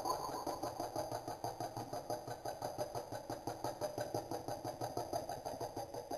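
A boy making a weird mouth noise with closed lips: a steady, rapid pulsing of about seven beats a second, fading slightly toward the end.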